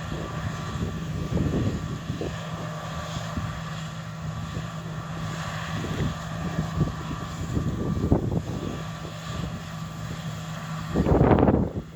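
John Deere T670i combine harvester running as it cuts, a steady engine hum with wind buffeting the microphone in gusts. A loud rush of wind noise comes about eleven seconds in.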